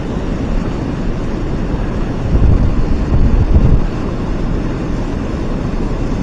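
Wind buffeting the microphone over the steady rush of water pouring below a dam, with stronger gusts from about two to four seconds in.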